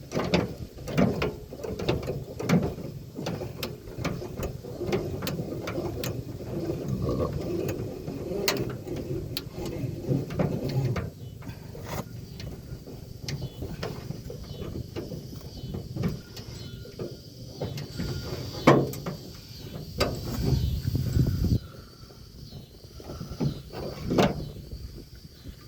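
Spare tire being worked down from the under-bed hoist of a 2002 Dodge Ram 1500: repeated metallic clicks and rattling, with scattered knocks and one louder clunk about two-thirds of the way through.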